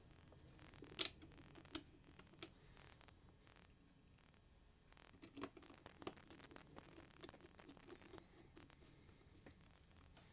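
Faint clicks and scrapes of small metal parts being handled, and a screwdriver turning a screw into a machined aluminium adapter plate on a cordless cutoff tool. A sharper click comes about a second in, then a run of light ticks and scratches through the middle.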